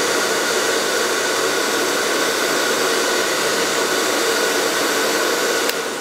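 Handheld hair dryer with a diffuser attachment blowing steadily on its low setting, a constant airy rush with a faint motor whine. A single click comes near the end.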